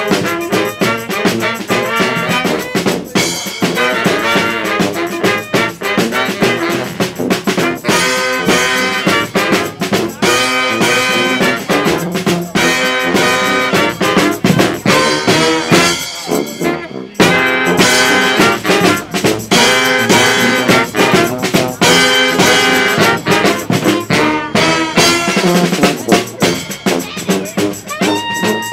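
Brass band playing an upbeat tune, with trumpet, trombone, saxophone and sousaphone over a snare drum; the music drops out for a moment just past halfway, then carries on.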